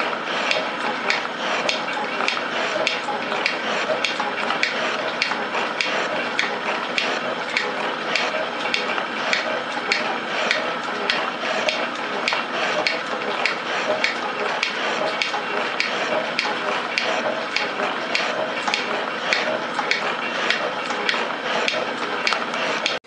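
Rhodes metal shaper running under cut, its ram stroking back and forth as the tool bit planes the face of a steam chest casting, with a steady, rhythmic mechanical clatter.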